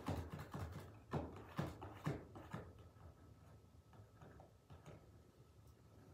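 Plastic squeegee working wet paint protection film on a car door: a run of soft ticks and scrapes about every half second, fading after about three seconds.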